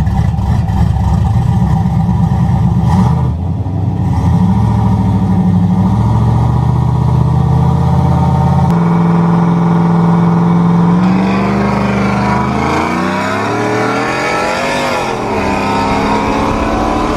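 Car engine running hard at high revs, its pitch changing in steps like gear shifts during a street race, with one sharp drop about halfway through. In the last few seconds more rising and falling engine notes join in.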